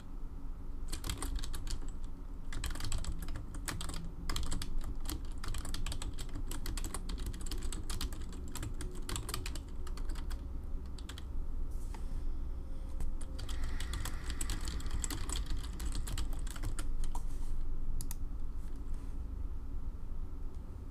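Typing on a computer keyboard: rapid runs of keystrokes in bursts with short pauses between them, as words are typed and the tab key pressed between them.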